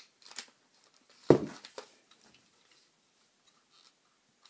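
Handling noise from a rifle scope being fitted to an airsoft rifle: a light click, then one sharp knock a little over a second in, another click, and faint scattered ticks.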